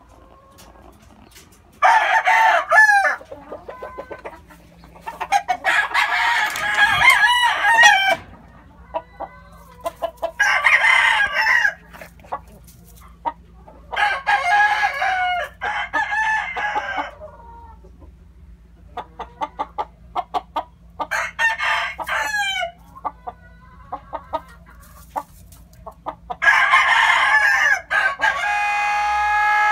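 Gamefowl roosters crowing, about six separate crows spaced several seconds apart, with soft clucking and small clicks in the gaps.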